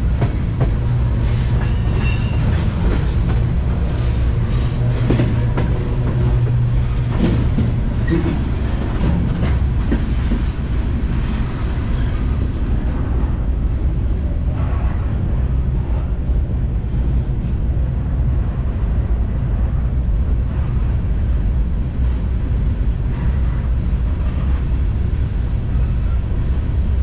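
A freight train car rolling along, heard from on board: a steady, loud rumble of wheels on rail, with scattered clanks and rattles.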